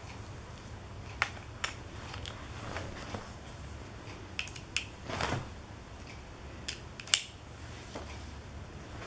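Scattered light clicks and a short scrape of screwdriver bits and a flexible screwdriver shaft being handled, with bits being taken from their plastic holder. There are about seven clicks in all, and the loudest comes a little past seven seconds.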